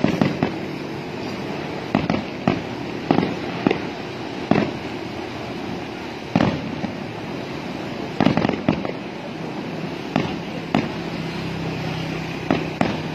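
Aerial firework shells bursting: a dozen or so sharp bangs at irregular intervals, a second or two apart and some in quick pairs, over a steady background din.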